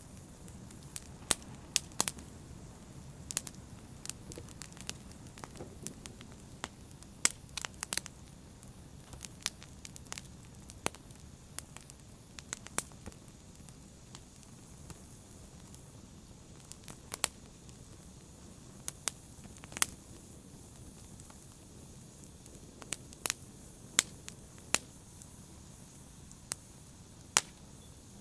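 Wood fire burning in a fireplace: a low steady rush of the flames with sharp, irregular pops and crackles of the burning logs.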